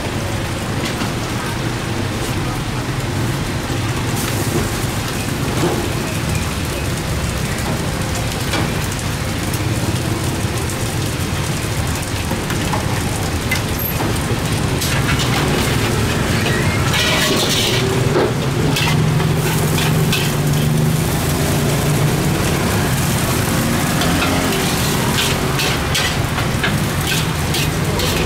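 Food sizzling and frying in a wok over a gas burner, as a steady crackling hiss. Near the end, a run of quick metal scrapes and clanks as a ladle and spatula stir-fry rice against the wok.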